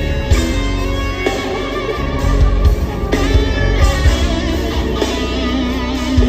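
Loud live band music with electric guitar and a heavy bass low end, played over a concert sound system during a sound check.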